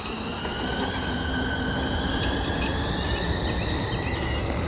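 Front-wheel QS273 electric hub motor of a dirt bike whining as the bike accelerates away under electric power, the whine rising slowly in pitch, then levelling off, over a steady low noise.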